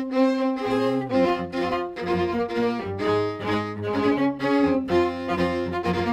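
Music led by bowed strings, violin and cello, with a steady beat of about two strokes a second.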